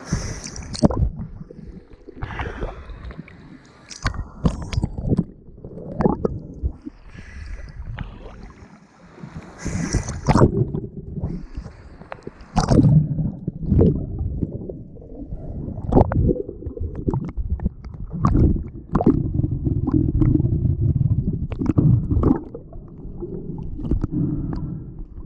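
Sea water sloshing and gurgling around an action camera held at the waterline and dipped under, heard as a muffled low rumble broken by many irregular splashes.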